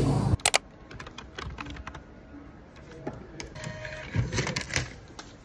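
Scattered light clicks and taps over quiet indoor room sound, with a cluster of louder knocks about four and a half seconds in. A loud snatch of voice and music cuts off abruptly within the first half second.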